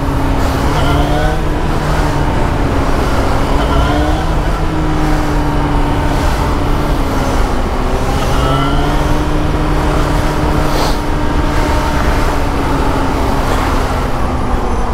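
Motorcycle engine running at low revs as it filters through slow traffic. The revs rise and fall briefly a few times with the throttle, over steady wind and road noise.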